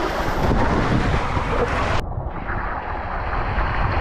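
Water churning and sloshing around a person in an icy pool, with wind buffeting the microphone. About halfway through, the sound suddenly turns duller as its highest part drops away.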